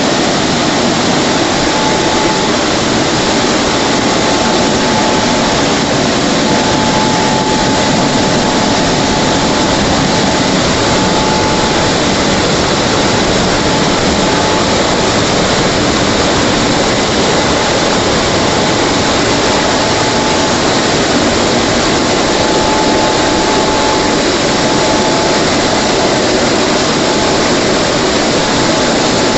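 Drying blowers of a WashTec SoftCare 2 Pro rollover car wash running, a loud steady rush of air from the roof dryer nozzle over the car, with a faint whine that comes and goes.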